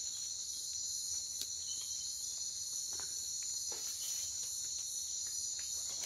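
Steady high-pitched chorus of night insects, several overlapping trills, with a few faint ticks.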